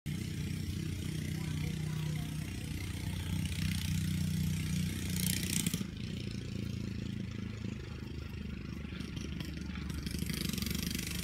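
An engine running steadily at a low idle, with a brief hiss a little past five seconds in.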